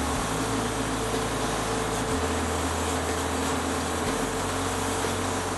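Drill press running with a wire wheel in its chuck, a workpiece held against the spinning wheel: a steady motor hum under an even hiss of the wire brushing.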